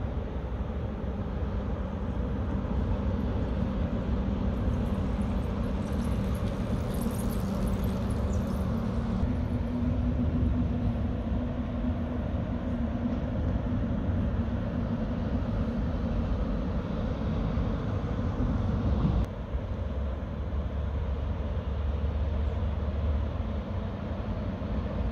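Heavy road traffic, lorries driving across a bridge: a steady low rumble with an engine drone running under it. The sound drops abruptly about three-quarters of the way through.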